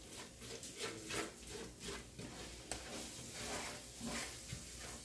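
Red silicone spatula scraping and stirring a thick paste of oil and seasoning in a large aluminium pot, in a quick series of short strokes, a few a second.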